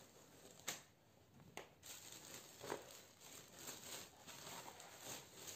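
Faint crinkling and rustling of thin plastic wrap as a stack of brick pastry sheets is handled, with three sharper crackles in the first half.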